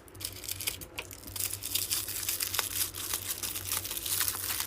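Toy packaging wrap being torn and crumpled open by hand: a few scattered crackles at first, then a dense, continuous crinkling from about a second and a half in.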